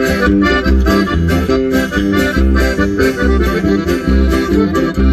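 Norteño music: an accordion plays the melody in quick, changing notes over a steady bass beat, in an instrumental passage with no singing.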